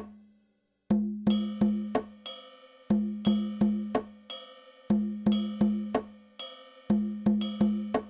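Soundtrack music: after about a second of silence, a low, pitched percussive note is struck in groups of four, about a third of a second apart, each ringing briefly. The pattern repeats every two seconds.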